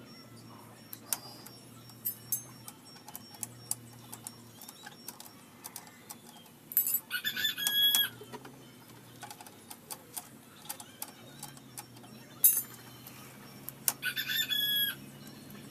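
Hand tools working on motorcycle bolts: scattered sharp clicks and clinks of wrenches, with two louder runs of rapid, ringing clicks about a second long, around seven and fourteen seconds in.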